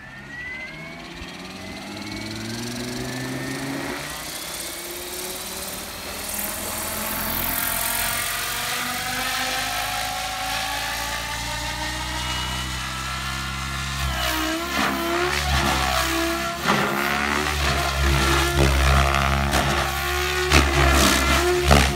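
Electric RC helicopter spooling up: the motor and rotor whine climbs steadily in pitch over about fourteen seconds. Then it gets louder, and the pitch wavers up and down over a heavy low rumble as the rotor takes load, with the governor holding headspeed during a test of a lowered collective-add setting.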